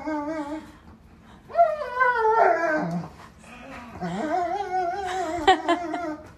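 A dog whining in long, wavering cries that bend up and down in pitch, in three stretches with short gaps between.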